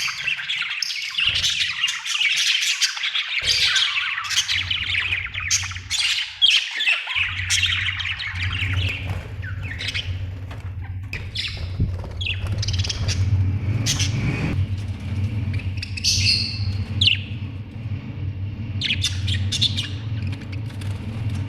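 Budgerigars chirping and squawking, a dense warbling chatter at first that thins to scattered chirps. A steady low hum sets in about seven seconds in.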